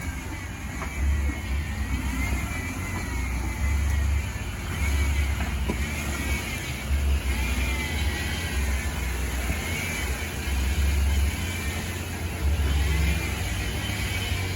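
Off-road 4x4 engine working hard on a rocky climb, its revs surging and easing every second or two.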